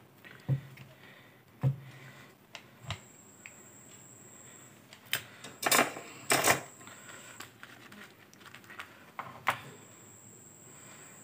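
Small clicks and taps of multimeter probes and fingers on a circuit board as the legs of a soldered IC are checked for shorts, with two louder scraping rustles of the board being handled about halfway through.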